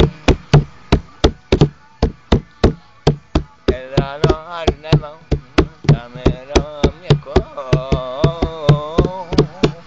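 A man singing a song in a loud voice over a steady beat of sharp knocks, about four a second; the voice comes in about three and a half seconds in, with long held, wavering notes.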